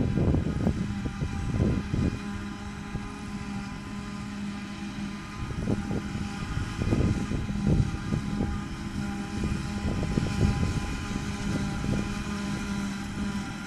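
Claas Jaguar 850 forage harvester running steadily under load, picking up and chopping heavy first-cut grass and blowing it into a trailer, with a steady machine hum. Wind buffets the microphone, hardest near the start and again around six to eight seconds in.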